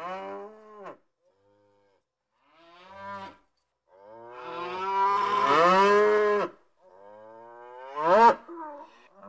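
Cattle mooing: four calls, a short one at the start, a brief one about three seconds in, a long loud one from about four seconds lasting over two seconds, and another near the end that rises sharply.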